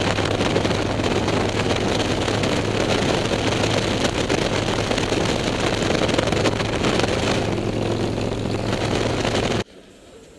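Harley-Davidson V-twin running at cruising speed, its steady drone mixed with wind rushing over the microphone. The sound cuts off abruptly near the end to a much quieter background.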